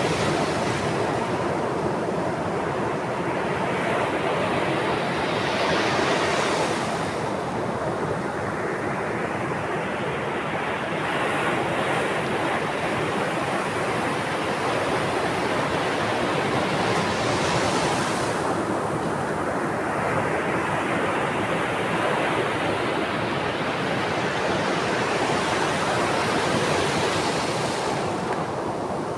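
Sea waves: a steady rush of surf, with three waves swelling and breaking about ten seconds apart.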